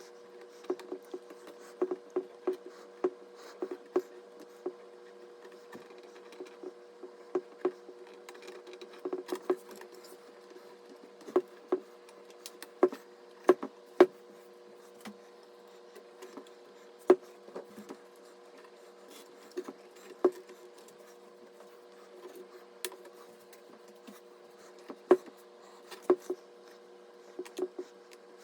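Irregular small clicks and taps of computer parts being handled and fitted during a PC assembly, over a steady low hum.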